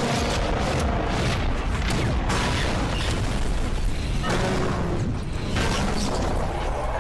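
Explosions and energy-weapon blasts from an animated battle scene, following one another in a loud, unbroken barrage.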